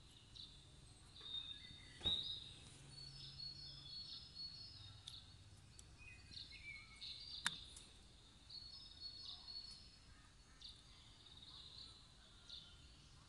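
Faint birds chirping in short high notes throughout, with two sharp clicks, one about two seconds in and one a little past seven seconds.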